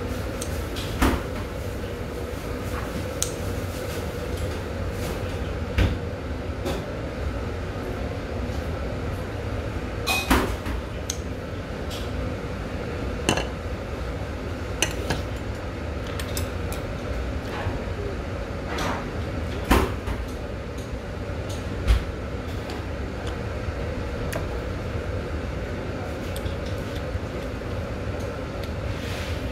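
Metal utensils clicking and clinking against a bowl, about seven sharp knocks spread through, as scissors cut a whole squid and chopsticks and a spoon work the bowl, over a steady low hum.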